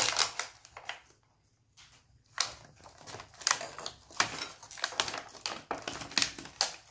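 Irregular clicking and crinkling of plastic toy pieces and packaging being handled, with a pause of about a second near the start.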